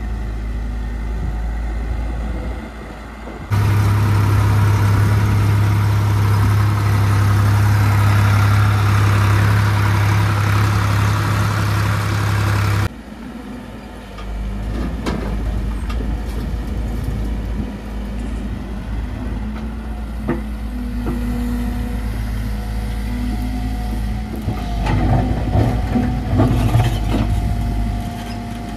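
Diesel engines of heavy farm and earthmoving machinery running steadily, with abrupt changes in sound about 3.5 and 13 seconds in; the loudest stretch between them has a strong low steady hum. A few knocks near the end.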